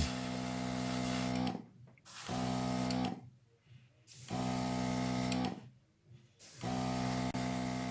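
Background music: held chords in four short phrases, broken by brief pauses.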